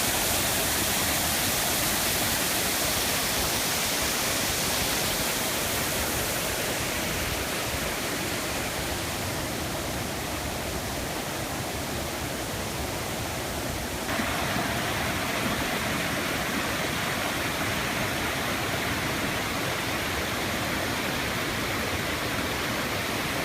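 Steady rush of falling water from the Nokhch-Keloy waterfall, a 54-metre fall. About fourteen seconds in its tone shifts abruptly and it grows slightly louder.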